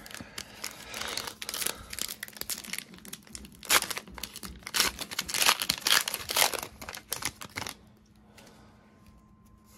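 Foil booster-pack wrapper crinkling and tearing as the pack is opened: a dense run of crackles that dies down about two seconds before the end.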